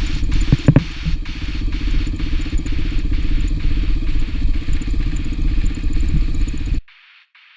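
Motorcycle engine running under way, mixed with wind noise on the microphone. It cuts off abruptly about seven seconds in, leaving a faint, evenly repeating pulse.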